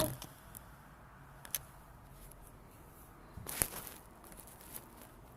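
Quiet room tone with a few faint clicks and a brief rustle about three and a half seconds in: small objects being handled.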